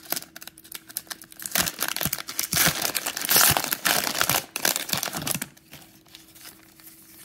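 Cellophane wrapper of a trading-card cello pack crinkling and tearing as it is pulled open by hand, loudest around the middle and dying down over the last couple of seconds.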